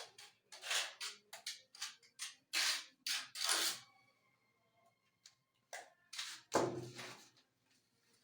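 Hand tools working cement and tile. There is a quick series of short, sharp scraping strokes, a pause of about two seconds, then a few more, the heaviest about two-thirds of the way through.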